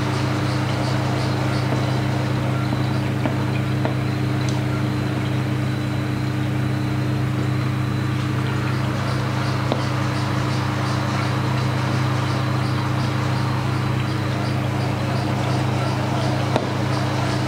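Steady low machine hum with a hiss over it, and a few faint clicks.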